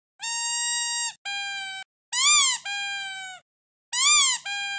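A female cat crying out while being mated: about six short, high, squeaky cries in quick succession, some rising and falling in pitch, sounding like a squeaky toy.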